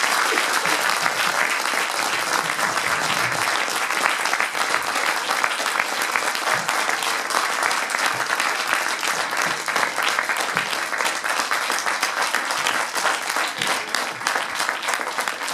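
Theatre audience applauding steadily with many hands clapping at once, the ovation at the close of a talk, thinning out near the end.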